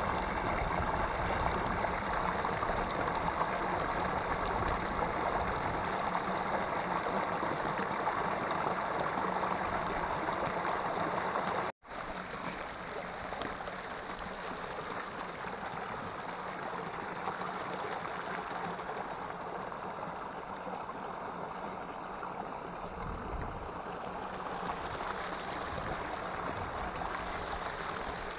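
Small waterfall spilling over a mossy rock ledge into a pool, a steady rushing of water. It breaks off sharply about twelve seconds in, and a shallow stream running over rock follows, a little quieter.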